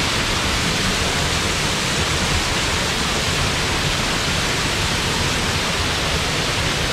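Small forest waterfall plunging into a shallow pool: a steady, even rush and splash of falling water.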